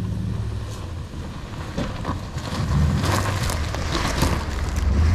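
A Suburban SUV driving on a dirt road: a steady low rumble of engine and tyres, with clattering knocks and rattles from the bumps from about two seconds in.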